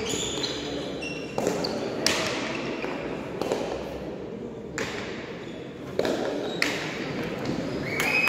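Hard pelota ball smacking against hands and the frontón wall during a rally, a string of sharp cracks a second or so apart that echo through the hall.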